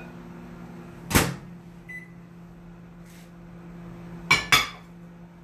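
Microwave oven handled as the cooking ends: a sharp clack about a second in, a short single beep, then two quick sharp clacks near the end, like the door and latch, over a steady low hum.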